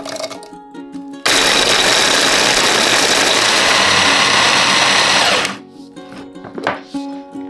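Electric mini food chopper running for about four seconds, its blade grinding chocolate wafer cookies into crumbs; it starts suddenly about a second in and cuts off suddenly. Light background music plays around it.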